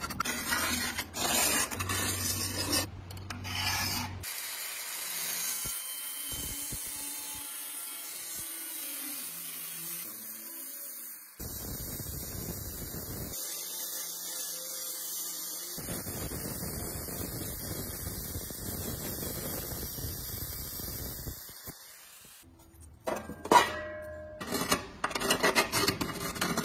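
Angle grinder with a cutting disc cutting through sheet steel: a steady high-pitched cutting noise lasting most of the time. At the start and near the end, a steel scriber and a tape measure scrape and tick against the metal as it is marked out.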